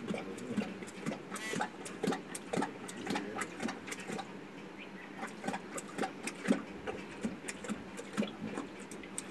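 An Asiatic lion lapping water from a stone tank: a quick, uneven run of wet clicks and slaps, several a second, with no break.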